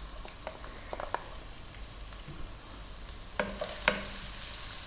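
Chopped garlic sizzling in hot oil in a nonstick pan, with a steady hiss, stirred with a wooden spatula that knocks against the pan a few times, loudest twice near the end.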